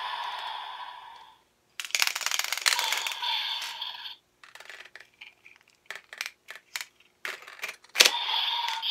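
DX Evol Driver toy belt: its electronic sound effect fades out, then plastic clicks and rattles as the bottles are pulled from its slots and handled. About eight seconds in, a sharp snap as a bottle is pushed back into a slot sets the belt's electronic sound going again.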